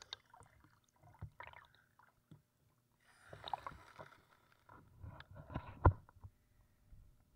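Sea water splashing and sloshing around an action camera at the surface as a swimmer moves, in irregular bursts, with one sharp knock on the camera a little before the end.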